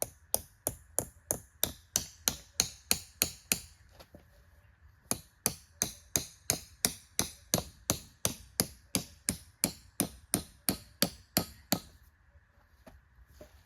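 Tent stake being driven into the ground with a hammer: quick, evenly spaced blows, about four a second, in two runs with a short pause about four seconds in, stopping about two seconds before the end.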